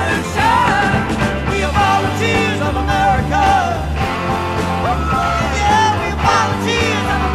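Psychedelic rock song: singing over a full band, with a steady low bass line and drums.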